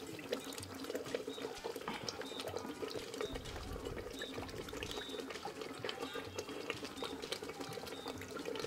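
Water splashing and dripping in a plastic bowl as pieces of raw fish are rinsed by hand and lifted out, with small irregular splashes and drips throughout.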